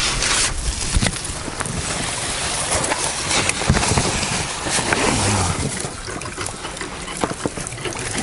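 Water sloshing and splashing against the side of an inflatable boat, with a dense rushing noise and a few scattered knocks.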